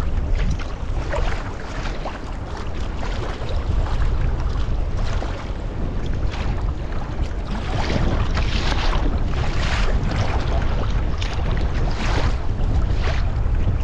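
Wind buffeting the microphone with a heavy low rumble, over water splashing and sloshing against a sea kayak's hull in choppy sea. The splashes come roughly once a second and grow louder in the second half.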